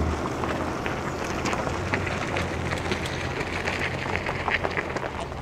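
Mercedes-Benz G 350 d's diesel engine running at low revs off-road, with a dense crackle of short clicks over it from the tyres on the dirt track.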